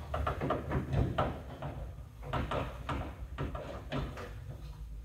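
Sleeper bunk door on a Peterbilt 379 being fitted into its opening by hand: irregular clunks and rattles of metal, two or three a second, as the door and its hardware knock against the frame.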